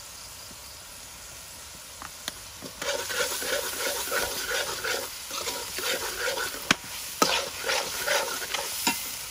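Metal spatula stirring and scraping around a steel wok, mixing sauce into shallots and garlic over a faint sizzle. The scraping starts about three seconds in and goes in quick repeated strokes, with a couple of sharp knocks of the spatula on the wok.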